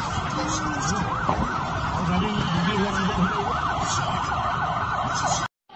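Emergency vehicle siren in a fast yelp, its pitch sweeping up and down about three times a second over steady street noise. It cuts off abruptly near the end.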